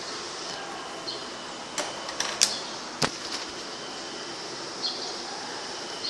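Panasonic ceiling exhaust fan running steadily, an even airy noise with a faint high whine. A few sharp clicks and a knock come about two to three seconds in.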